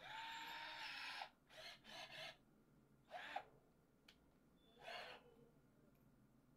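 A 12-volt cordless impact drill's motor is run in short bursts while a bit is tightened in its keyless chuck. Each burst spins up to a steady whine: the first lasts about a second, followed by several shorter blips over the next few seconds.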